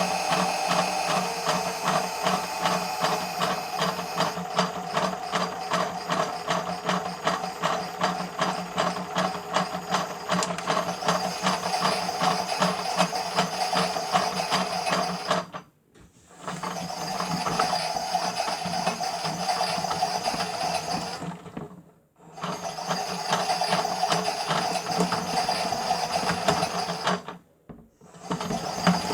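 Miele W1 toy washing machine's small motor and gears turning the drum mid-wash, a steady whirring with fast ratcheting clicks. It stops briefly three times, about six seconds apart, before starting up again.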